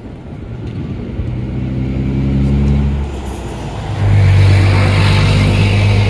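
Engine of heavy construction machinery at a railway modernisation site, revving up, easing off about three seconds in, then running loud and steady at higher revs from about four seconds in.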